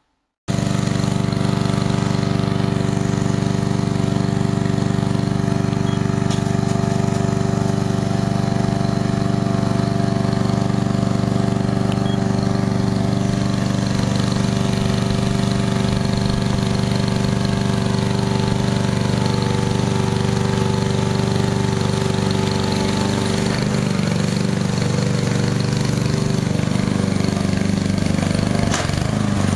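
Small gas lawnmower engine on a robot mower deck running steadily at a constant speed. Its note wavers and shifts slightly in the last third.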